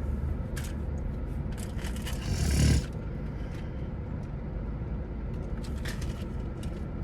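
Steady low hum of a car engine running, heard inside the cabin, with a few small handling clicks and a brief louder rustling scrape about two and a half seconds in.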